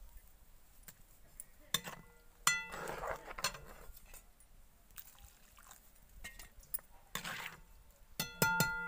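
Metal spoon knocking and scraping against an iron kadhai and an aluminium pot. There are scattered light clicks, a short scrape about three seconds in and another near seven seconds, and ringing metal clinks, the loudest near the end.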